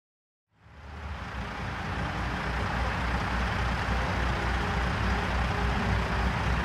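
Truck engine sound effect, fading in from silence about half a second in and settling into a steady run with a low pulsing rumble under a broad hiss.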